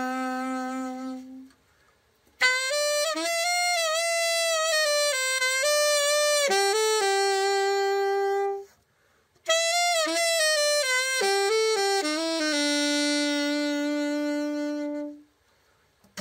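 Selmer Super Action 80 Series II alto saxophone playing a slow melody in two phrases, each ending on a long held note, with short breath pauses between them. This is a play test after a full overhaul for hardened pads and a dented bow.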